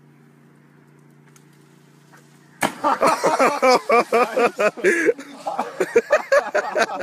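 A faint steady low hum, then about two and a half seconds in a sudden splash as a person on a rope swing drops into the water, followed by loud excited yelling from several voices.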